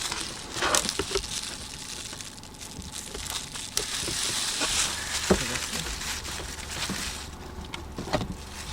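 Plastic packaging rustling and crinkling as it is handled, with a few light knocks and clicks.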